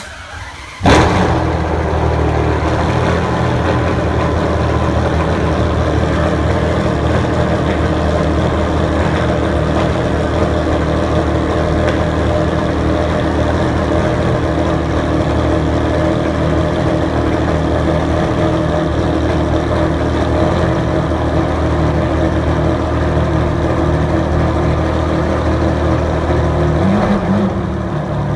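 Ferrari Enzo's V12 with a Tubi exhaust starting up: it catches with a sudden loud flare about a second in, then settles into a loud, steady idle that wavers slightly near the end.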